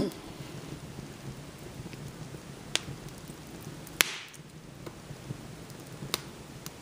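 Wood fire in a fireplace crackling: a steady low rush of flame with a few sharp pops, the loudest about four seconds in. A brief falling squeal sounds right at the start.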